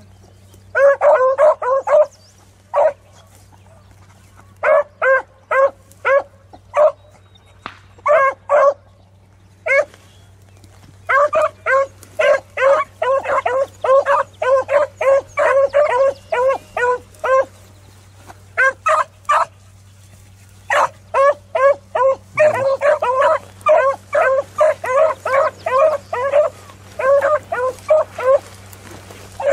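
A brace of beagles baying as they trail rabbit scent: quick, high yelps in runs of several a second, with short pauses between the runs.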